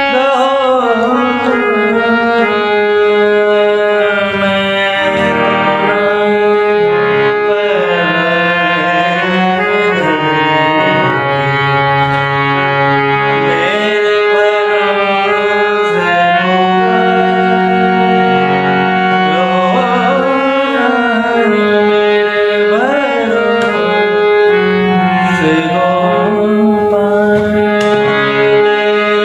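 Harmonium playing sustained notes and chords under a man singing a slow, ornamented Indian classical vocal line with sliding pitch glides.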